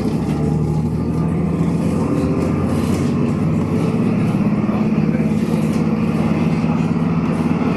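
A bus engine and drivetrain running steadily under way, heard from inside the passenger cabin as a low, even drone over tyre and road noise.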